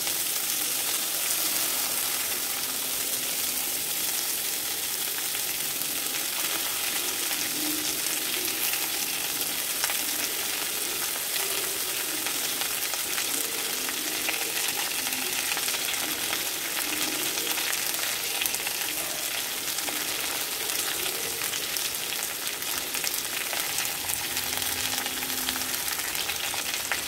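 Chopped jackfruit seeds sizzling in hot coconut oil in a kadai: a steady frying hiss.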